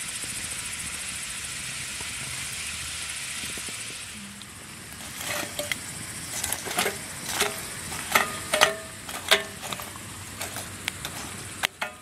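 A steady high hiss, then, from about five seconds in, a run of sharp knocks and clinks, several with a short metallic ring, as a log is pushed and knocked among glowing coals in a steel mangal (portable barbecue grill).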